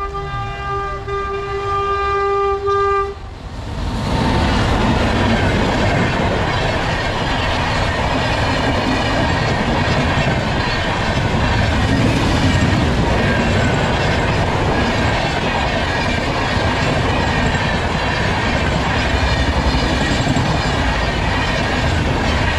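WAG-9 electric locomotive's horn sounding one long steady note for about three seconds. Then the express train passes at speed: a loud, continuous rumble of wheels on the rails with clickety-clack from the coaches.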